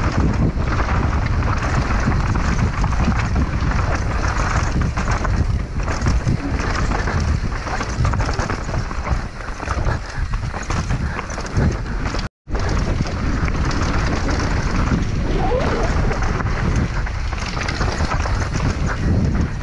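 Wind buffeting an action camera's microphone, with the rumble and rattle of a downhill mountain bike's tyres and frame over a dirt and rock trail at speed. The sound drops out for an instant about twelve seconds in.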